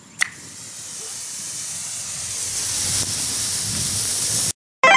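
A red car emergency road flare struck alight with a sharp click, then burning with a high hiss that grows steadily louder and cuts off abruptly. A brief ringing pitched tone follows near the end.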